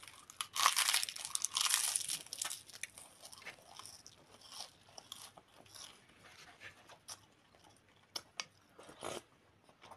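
Crunching as a person bites into and chews a crisp toasted bread slice topped with grated sausage and cheese. The crunches are loudest for the first two seconds or so, then give way to quieter chewing with scattered small crackles.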